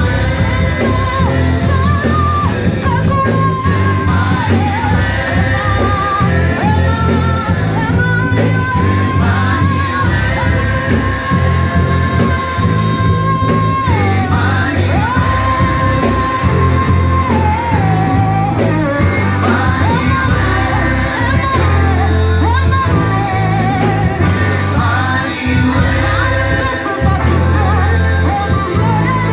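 Church worship song: a lead voice singing long held notes over a band with a strong, steady bass.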